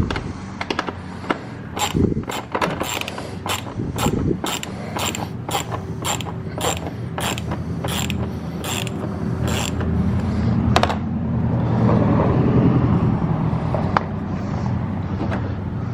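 Hand ratchet with a 10 mm socket and extension clicking steadily, about two to three clicks a second, as it backs out an air filter housing bolt. A steady low hum runs underneath and grows louder in the second half.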